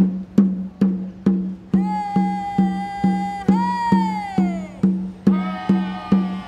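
A tall wooden hand drum struck by hand in a steady beat, a little over two strokes a second. From about two seconds in, a woman's voice sings one long held call over it that slides down and fades, then starts a second call near the end.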